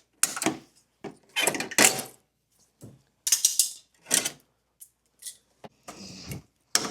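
Hand work on a transmission cooler held on with zip ties: about five short bursts of clicking and rattling with quiet gaps between them.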